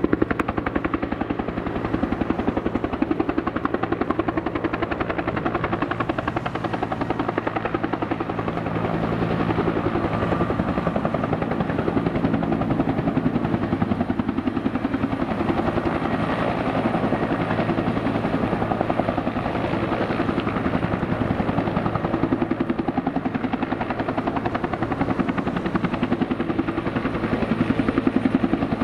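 Bell 212 helicopter hovering low, its two-bladed main rotor beating in a fast, steady rhythm over the running of its twin turboshaft engines, with a faint high steady whine.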